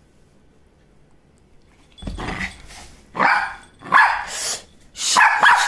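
Small shaggy dog barking in a quick run of short, sharp barks, starting about two seconds in.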